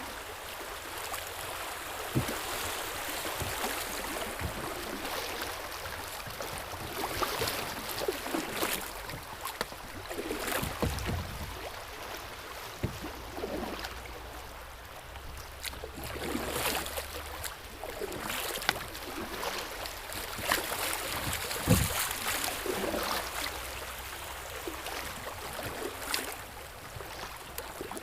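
River water splashing and gurgling around a kayak being paddled, with occasional short knocks against the hull.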